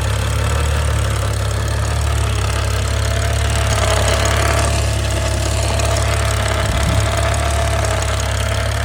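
BMW 535i's N55 turbocharged inline-six idling steadily just after its first start following a full timing chain replacement, with a thin, steady whine over the idle that grows stronger a few seconds in. The owner hears it as a whirling or whining sound that he thinks may just be the new timing chains being tight.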